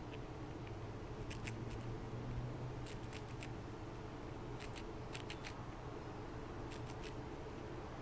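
A fox squirrel cracking and chewing sunflower seed shells close to the microphone: sharp little clicks in clusters of two to four, every second or so, over a steady low hum.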